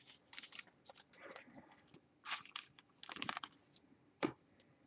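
Faint rustling and light clicks of baseball trading cards being handled and laid down on a stack, a few short crackly scrapes spread through the moment.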